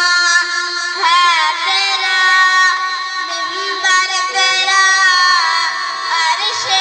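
A song with a high singing voice holding long, wavering notes over a steady held note underneath.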